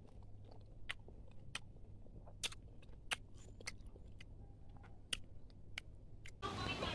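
Faint, scattered sharp clicks and ticks, about a dozen, over a low steady hum; a steady hiss comes in near the end.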